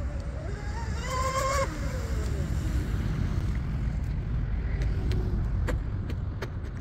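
Electric motors of a twin-motor RC speed boat whining, the pitch rising and then falling away over a couple of seconds, over steady wind rumble on the microphone.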